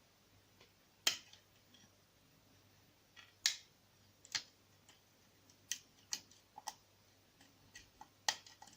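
Sharp, irregularly spaced metallic clicks of a lock pick working the pins of a small CISA oval pin-tumbler cylinder, about seven in all, the loudest about a second in, at three and a half seconds and near the end.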